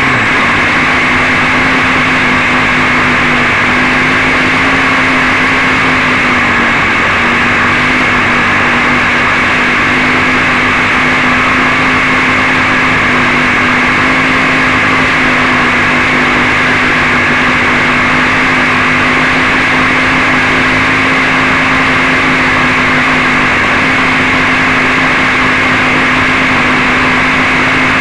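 Quadcopter's electric motors running steadily at low speed with the craft lying crashed in the grass: a constant loud hum with a steady whine.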